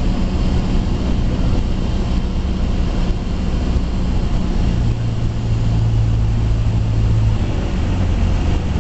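Cessna 172SP's four-cylinder Lycoming IO-360 engine and propeller running at low power, heard from inside the cabin with steady airflow noise, through the flare, touchdown and landing roll. The low drone strengthens for a couple of seconds a little past the middle.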